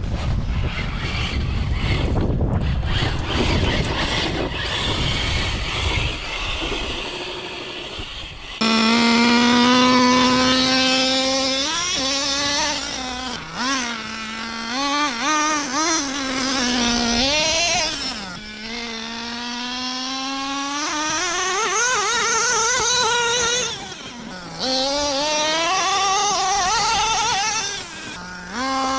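Rough, rushing noise for the first several seconds, then, after a sudden change, a small nitro RC engine buzzing loudly, its pitch rising and dipping again and again as it is revved and let off.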